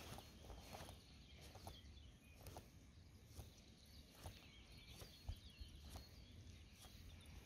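Near silence: faint footsteps at a slow walking pace, about one a second, with faint birdsong.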